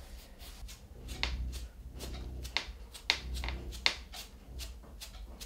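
Grooming work on an Airedale Terrier: a run of sharp, irregular snips and clicks, about two a second, over a low rumble of handling against the coat and table.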